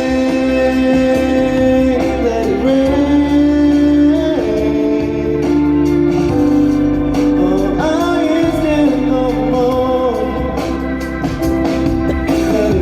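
A slow ballad: a singer holds long notes with sliding vocal runs over sustained organ-like keyboard chords and a bass line.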